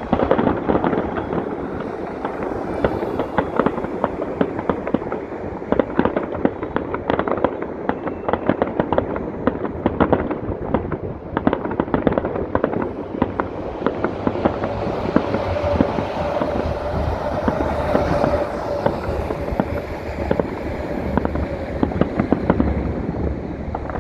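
Aerial fireworks display: a dense run of overlapping bangs, pops and crackling shell bursts with hardly a pause. About midway a steady tone is held for several seconds over the bangs.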